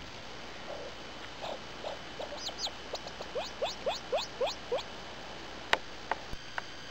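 Ruffed grouse giving a run of short, soft rising call notes that start slowly and quicken to about five a second before stopping. A few sharp clicks follow near the end.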